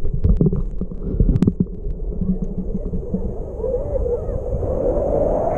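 Sea water sloshing and splashing against a waterproof action camera held at the surface, with a low rumble and sharp water clicks in the first second or so. Beachgoers' voices sound in the background, more from about halfway on.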